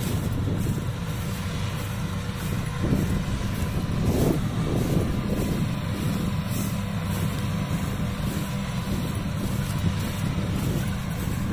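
Kubota DC-70 rice combine harvester's diesel engine running steadily as the machine cuts and threshes rice, a constant low drone.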